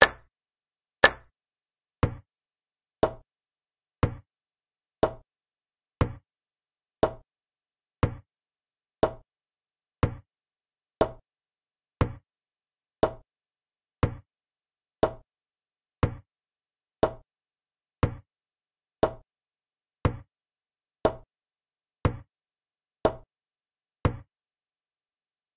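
Chess-move sound effect from a game-replay board: a short wooden click as each piece is placed, repeating evenly about once a second.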